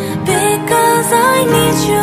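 Background song: a singing voice carrying a melody over instrumental accompaniment.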